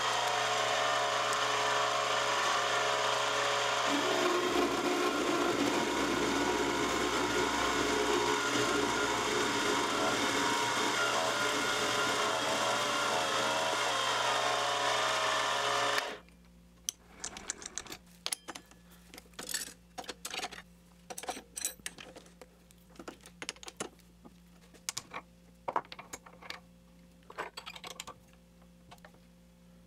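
Chinese mini lathe running steadily, its motor and gears whining, while a parting tool cuts through aluminum round stock, the cutting noise joining a few seconds in. The running sound cuts off suddenly about halfway, followed by scattered light clicks and knocks of tooling being handled at the quick-change tool post.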